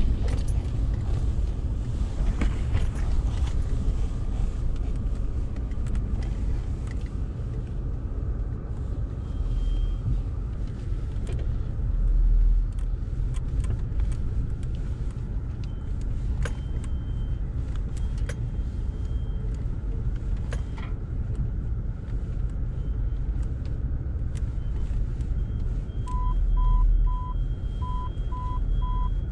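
Low engine and drivetrain rumble inside the cabin of a 4x4 crawling slowly over a rough, rutted forest track, with scattered knocks and rattles from the body and interior. Near the end comes a run of about six short beeps.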